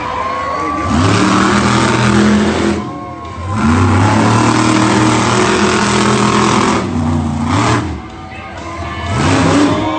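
Monster truck engine revving hard in long bursts. It falls off sharply about three seconds in and again near the eight-second mark, then climbs back each time.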